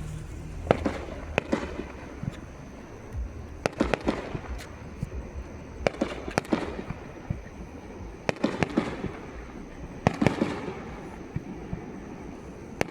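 A fireworks display going off: sharp bangs and crackles, several in quick clusters about every two seconds, each with a short rumbling tail.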